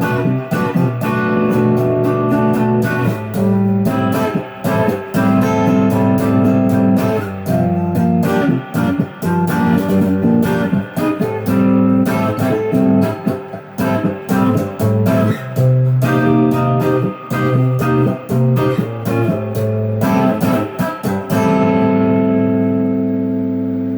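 Electric guitar with overdrive from a Sonicake Blue Screamer pedal, played through an amp: a run of picked notes and chords, ending on a chord left to ring out.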